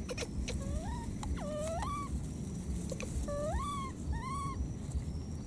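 Baby macaque calling: four short, high coo calls, each gliding up in pitch and levelling off, over a low steady rumble.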